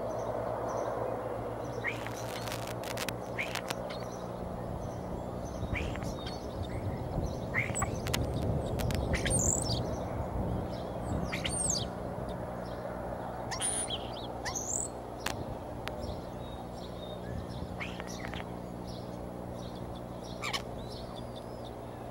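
Short, high, thin bird chirps, about half a dozen scattered through the middle, over a steady low hum, with a few clicks and rustles about two seconds in.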